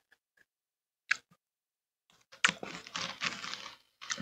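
Close-miked eating of Cocoa Pebbles cereal: a short click about a second in, then about a second and a half of crunching and chewing near the end.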